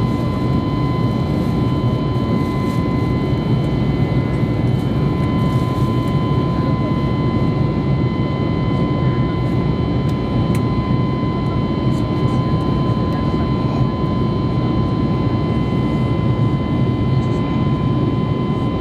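Airbus A321neo cabin noise in flight, heard from a window seat: a loud, steady rumble of engine and airflow noise with a thin steady whine on top.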